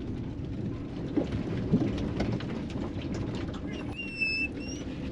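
Ram ProMaster campervan rolling slowly along a narrow road, heard from inside the cab: a steady low rumble of tyres and engine with scattered clicks and rattles. A brief high squeak comes about four seconds in.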